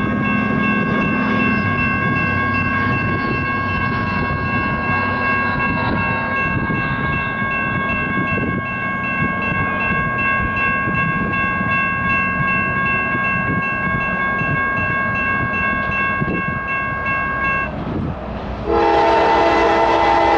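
Approaching CSX freight train's air horn sounding for the grade crossing: a long steady high-pitched blast over a low rumble, then a louder, deeper horn chord about two seconds before the end.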